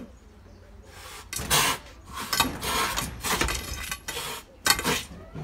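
Cat hissing and spitting in about six short, sharp bursts, the loudest near the end: a defensive threat from a cornered cat.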